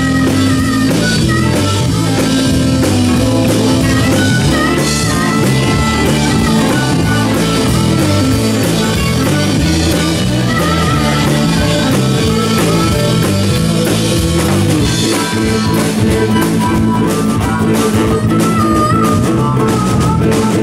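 Live rock band playing an instrumental intro, loud and steady: drum kit keeping a beat, electric bass, keyboard and electric guitar, with no vocals yet.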